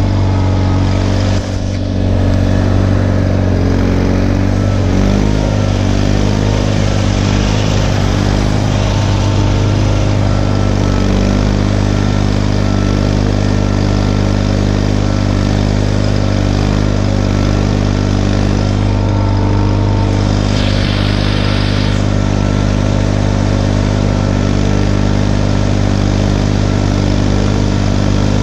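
Tractor engine running at a steady speed, with one brief dip about a second and a half in.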